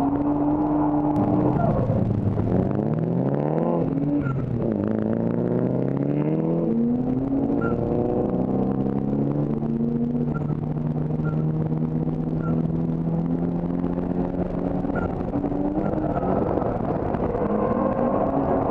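Drift car engine revving hard twice, each time climbing in pitch and then dropping off sharply, then holding fairly steady revs with small shifts.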